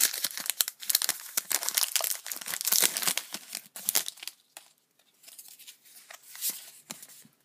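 Foil Pokémon TCG booster pack wrapper being torn open and crinkled, a dense crackling for about four seconds. After that, fainter rustles and clicks of the wrapper and cards being handled.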